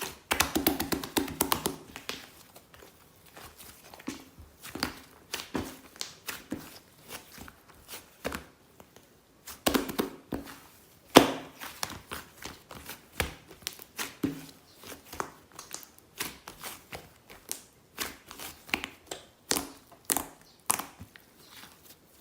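Close-up handling sounds: crinkling and tearing of a thin material such as paper or plastic, broken up by light taps and a few sharper knocks. The loudest knock comes about eleven seconds in.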